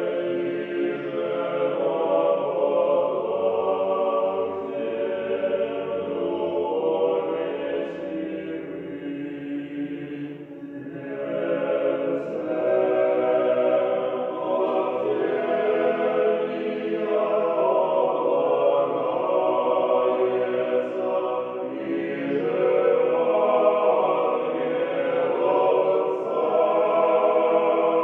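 A choir singing a slow chant, the voices holding long chords, with a brief pause about ten seconds in.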